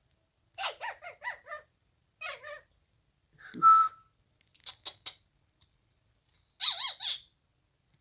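Pet cockatiel whistling and chattering in a string of short, warbling phrases, with a few sharp clicks about five seconds in.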